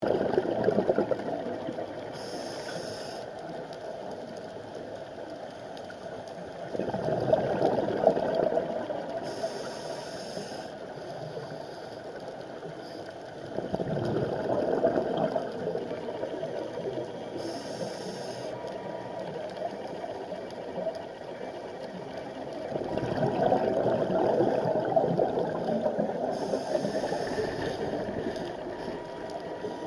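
Scuba diver breathing through a regulator underwater. Each breath is a short hiss, followed a few seconds later by a longer gurgling rush of exhaled bubbles. Four breaths come at roughly eight-second intervals.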